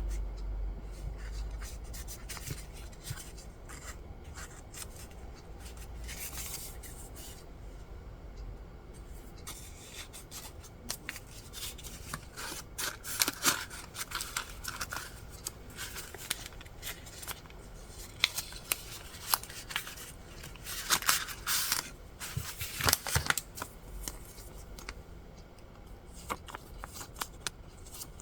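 Hands handling paper stationery: paper rustling and sliding, with scattered small clicks and taps. The louder rustles come around the middle and again a little later.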